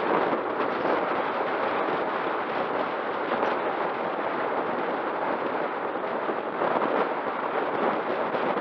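Wind buffeting a bike-mounted camera's microphone at descending speed: a dense, steady rush of noise that swells in gusts.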